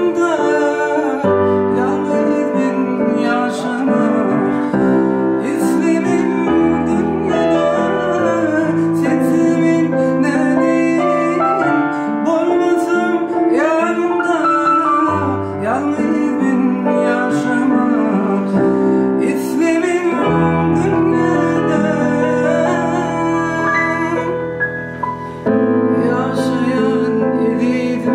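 A man singing a song to a digital piano accompaniment: held chords changing every couple of seconds under a melody sung with vibrato.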